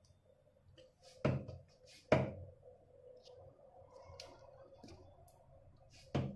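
Hands patting ragi dough flat into a roti on a wooden board: a sharp pat about a second in, a louder one just after two seconds, and another near the end, with a faint steady hum underneath.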